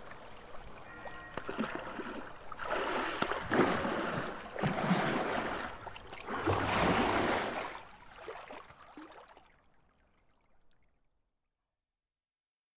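Ambient soundtrack: faint held tones, then three swells of rushing, water-like noise that die away, fading to silence about two seconds before the end.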